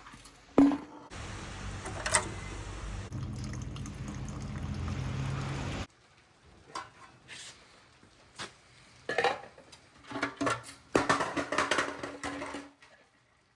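Metal clanks and knocks of tools and parts being handled, with a steady mechanical noise for about five seconds near the start that cuts off suddenly.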